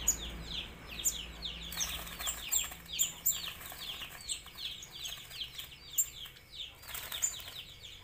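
A net bag of trapped bulbuls calling in a rapid, continuous run of short, falling chirps, several a second: distress calls of the captured birds being handled. Fluttering wings and the rustle of the mesh net come in among the calls.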